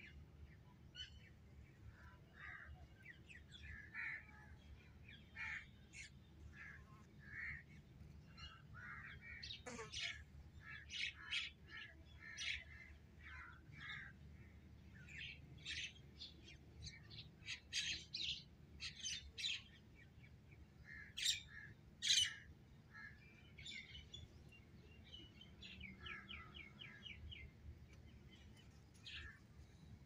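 Faint birds chirping and calling in the background: many short chirps scattered throughout, with a quick run of repeated notes a little before the end.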